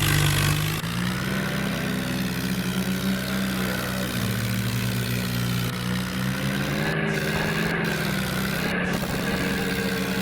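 Swaraj 855 FE tractor's three-cylinder diesel engine running steadily, its pitch rising and falling a little, with a brief rush of noise in the first second.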